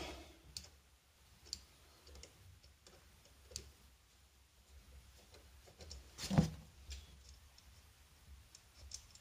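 Faint, scattered clicks of a flathead screwdriver loosening the float-bowl drain screw on a motorcycle carburetor, with one louder knock about six seconds in.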